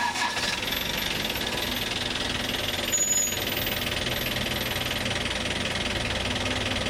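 A vehicle engine starting up and settling into a steady idle with a fast, even clatter.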